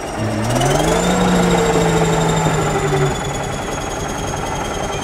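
Crawler bulldozer's diesel engine running under load: about half a second in it revs up to a higher pitch with a high whine rising along with it, holds for about two seconds, then the higher note falls away and the engine goes back to a steady rumble.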